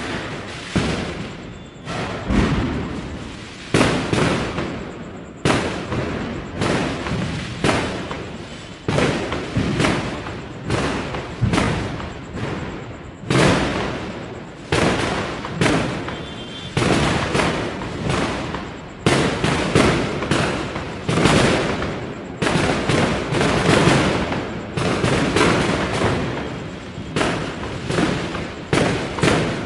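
Firecrackers going off in a continuous run of sharp bangs, about one or two a second, each trailing off into a fading rumble.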